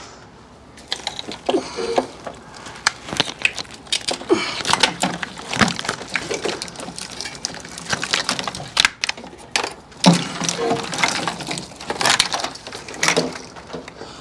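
Irregular clicking, rattling and rustling of hands working loose engine-bay wiring, plastic connectors and clips at the back of an engine, starting about a second in.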